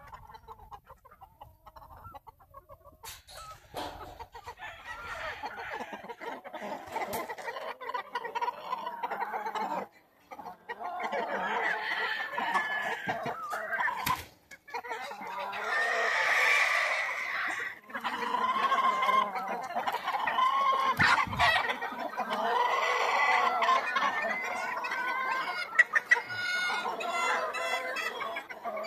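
Gamefowl chickens clucking and calling, with many calls overlapping. Fairly quiet for the first three seconds, then the calling carries on almost without a break.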